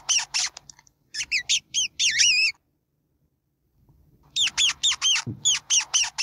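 Ferret making rapid high-pitched squeaks, about four a second, in two runs with a silent gap of about a second and a half between them.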